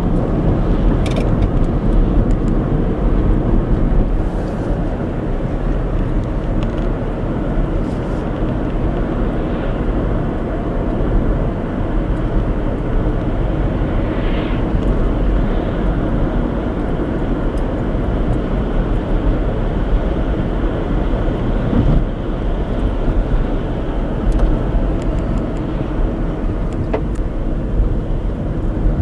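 A car driving, with a steady low rumble of road and engine noise and a few faint clicks.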